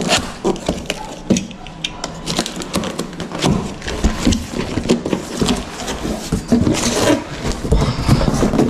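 Handling of a new vacuum cleaner's parts and packaging: irregular clicks, knocks and scraping as pieces are lifted out, fitted and set down.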